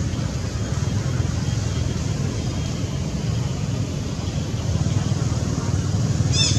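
Steady low rumble with an even hiss of outdoor background noise. Near the end a high, rapidly repeating chirring sound starts.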